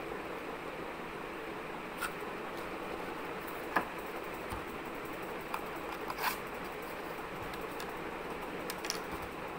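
Cardboard tubes being handled on a table: a handful of light taps and scrapes, the clearest at about four and six seconds in, over a steady background hiss.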